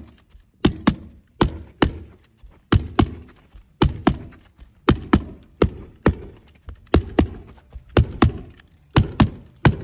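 Hammer tacker driving galvanised staples into roofing shingles: a steady run of sharp strikes, roughly two a second, many in quick pairs.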